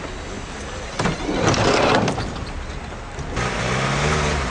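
A vehicle door shuts about a second in with a rush of noise, then a vehicle engine runs with a steady low hum from a little past three seconds.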